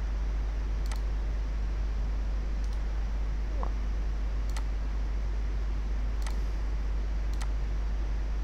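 Computer mouse clicks: five single clicks spaced a second or two apart, over a steady low hum.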